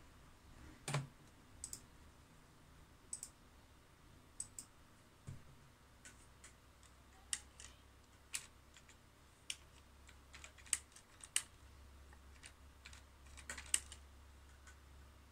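Irregular light clicks, a couple of dozen of them, short and sharp, over a faint low hum.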